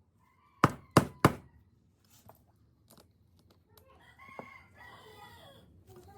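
Three sharp knocks in quick succession about half a second in, the loudest sounds here, then a rooster crowing in the background about four seconds in.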